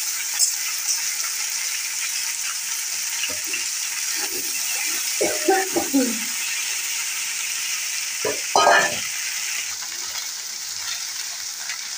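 Chopped okra sizzling in hot oil in a wok, with fried onion, just added to the pan. A metal spatula stirs it, scraping the pan a few times in the middle.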